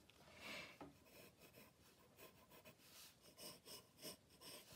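Faint scratching of a 2H graphite pencil on sketchbook paper: a run of short, quick drawing strokes.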